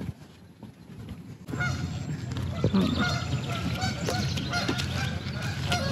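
A flock of ducks calling repeatedly with short honking calls, starting suddenly about a second and a half in, over a steady low rumble.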